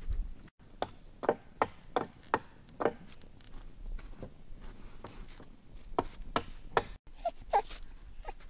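Wood campfire crackling: irregular sharp pops and snaps from burning logs, sometimes several in a second.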